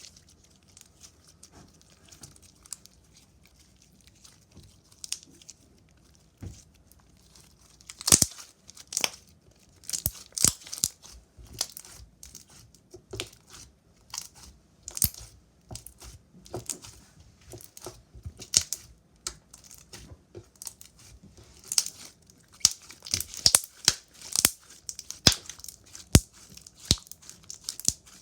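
Slime being worked by hand, squished and stretched, giving off sharp crackles and clicks; sparse and soft at first, then louder and denser from about eight seconds in.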